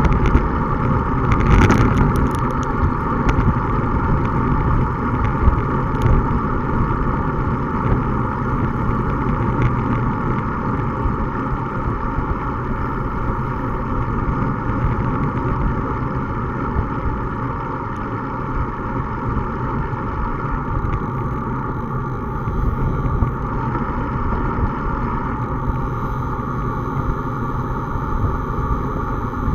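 Steady wind rush and road rumble picked up by the microphone of a Garmin bike-mounted camera on a bicycle moving at about 26–30 km/h. A few short clicks come in the first ten seconds or so.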